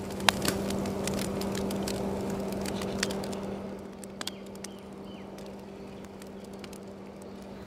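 Charcoal forge fire burning with scattered sharp crackles and pops as a bar of iron heats in it, over a steady low hum and rushing noise that eases a little about four seconds in.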